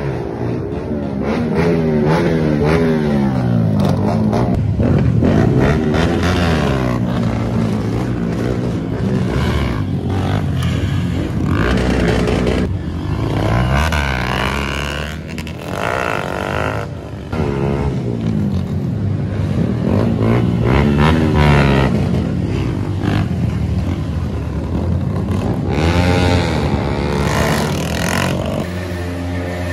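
Motorcycle engines revving hard, the pitch climbing and dropping again and again, with more than one engine heard at times. Near the end an engine settles to a steady idle.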